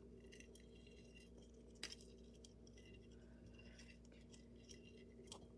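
Near silence: room tone with a steady faint hum and a few faint light clicks, the clearest a little under two seconds in.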